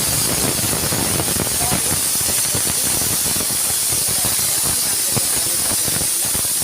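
Marinated broiler chicken pieces sizzling hard in hot oil and spice paste in a pan: a loud, steady frying hiss full of fine crackles.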